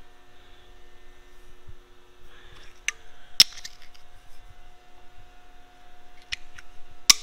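Several sharp metallic clicks and taps as a small metal level is set down and moved on a steel mill vise and pump shaft, the loudest about three seconds in and a few more near the end, over a faint steady hum.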